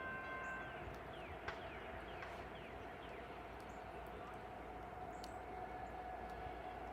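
A distant freight locomotive's air horn chord ends within the first second, leaving the faint steady hum and low rumble of the approaching train. There is one sharp click about one and a half seconds in, and a few short falling chirps.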